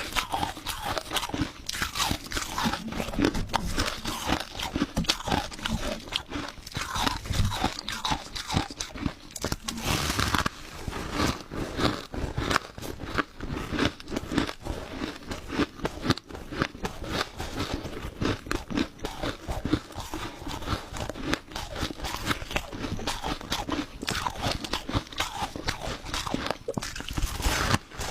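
Crushed ice being chewed close to the microphone: continuous crunching and cracking, irregular and dense throughout.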